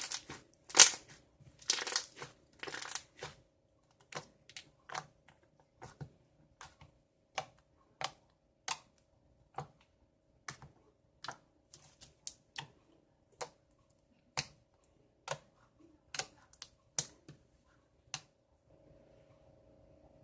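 Soft homemade slime being squeezed and stretched by hand: a few crinkly squelches at the start, then a string of sharp little clicks and pops, about one or two a second, at uneven intervals.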